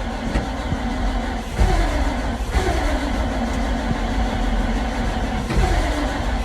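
Old dump truck engine being cranked with a jump pack and trying to catch, its note sweeping down over and over; a cold start with a non-working choke, helped by contact cleaner sprayed in as starting fluid.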